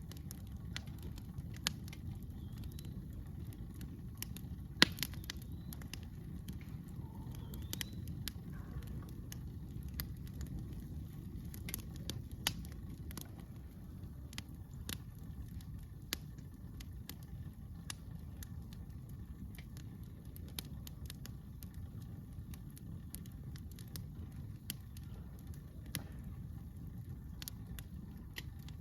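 Wood campfire crackling: irregular sharp snaps, one much louder pop about five seconds in, over a low steady rumble.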